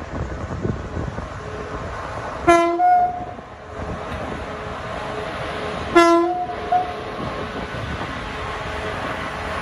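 Two short horn calls from a pair of electric freight locomotives, about two and a half seconds in and again about six seconds in, each a brief two-note sound. Under them runs the steady rumble of the approaching container train.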